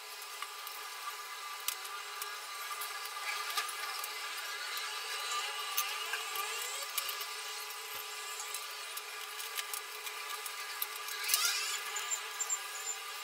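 Small clicks and scrapes of a screwdriver working on laptop parts, over a steady high-pitched whine, with a rising squeak about two-thirds of the way in.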